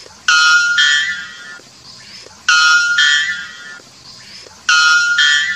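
Male white bellbird (araponga-da-amazônia) giving its loud two-note song three times, about two seconds apart. Each call is a pitched note followed at once by a second, slightly higher note.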